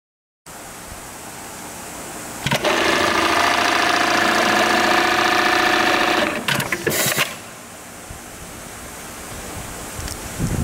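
Dematron DM-9820 electronic keyhole buttonhole sewing machine stitching a buttonhole: a low hum, then a loud, fast, even stitching run of about four seconds, followed by a few sharp mechanical clicks and clunks as the cycle ends, and a quieter hum again.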